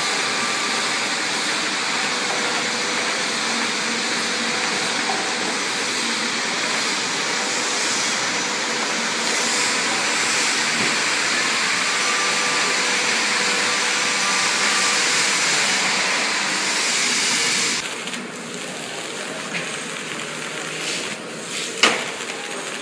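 Semi-automatic hot stamping machine running: a steady whirring hiss that drops in level about 18 seconds in, followed by a few sharp clicks near the end.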